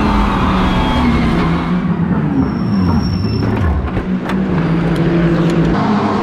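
Lamborghini Huracán GT3 EVO2's V10 engine running, its pitch falling and rising with the revs. A few sharp clicks come in over the second half.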